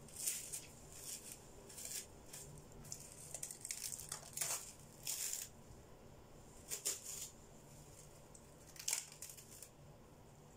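Plastic cling film crinkling and rustling in short, scattered bursts as it is handled to wrap balls of cold porcelain clay.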